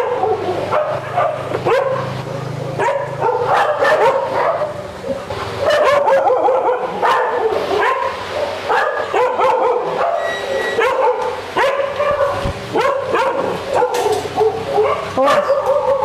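Many dogs barking and yelping at once. Short sharp barks and longer drawn-out cries overlap without a break.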